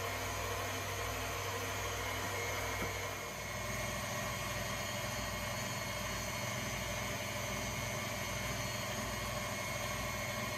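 Electric stand mixer running at low speed, its wire whisk beating heavy cream in the bowl to churn it into butter. A steady motor hum that dips briefly and settles a little higher about three seconds in.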